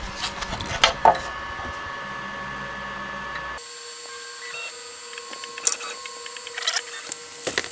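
Creality Ender 5 Pro 3D printer printing its first lines: a steady fan hum with the stepper motors whirring and chirping in short moves as the print head travels. There are a few clicks in the first second, and the steady tone changes about three and a half seconds in.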